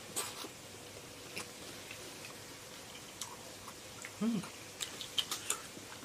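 Close-miked chewing of a mouthful of fried eggplant box, with scattered soft mouth clicks. A short hum comes a little over four seconds in, followed by a few more clicks.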